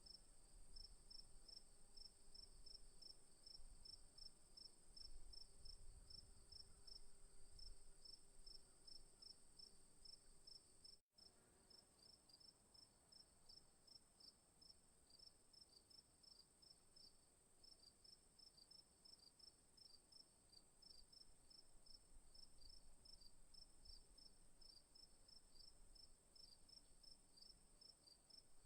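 Faint crickets chirping in an even rhythm, about three chirps a second, over a continuous high insect trill.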